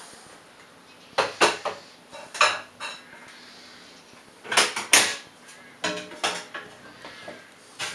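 Ceramic plates, cookware and cutlery clinking and knocking against a stainless-steel counter and stovetop. The sound comes in several short bursts of clatter, loudest about five seconds in, some with a brief ring.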